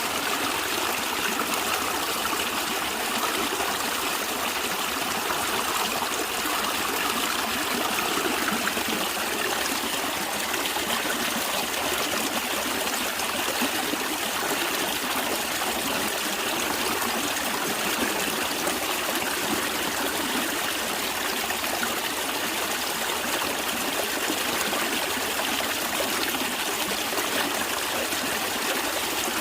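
A natural stream of water running and trickling steadily.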